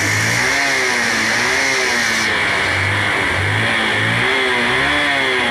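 Fast-flowing floodwater rushing steadily, with a motorcycle engine revving up and down over and over as the bike is worked through the water.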